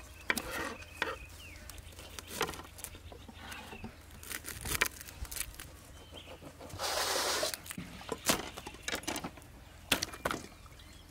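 Small kitchen knife clicking and tapping while small red onions are peeled by hand over a wooden cutting board, with the dry papery skins crackling. A louder rustle of under a second comes about seven seconds in.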